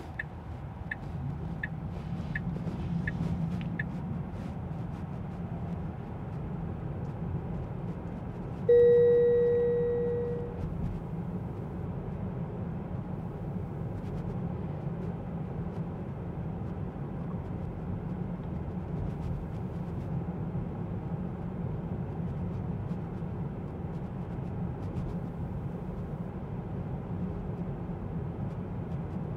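Steady road and tyre noise inside a Tesla Model 3's cabin while it drives. For the first few seconds the turn signal ticks, about two ticks a second. About nine seconds in a single chime sounds and fades over about two seconds.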